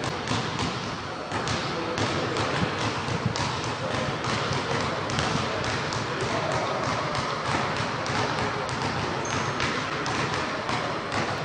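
Basketball being dribbled hard and fast on a hardwood gym floor: quick, uneven bounces, several a second.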